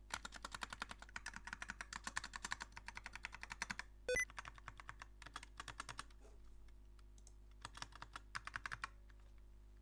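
Typing on a Magegee budget mechanical keyboard with red switches, modded with tape and foam: fast, continuous keystrokes for about four seconds, then a few scattered strokes, a pause, and another short burst of typing near the end. A brief loud blip comes about four seconds in.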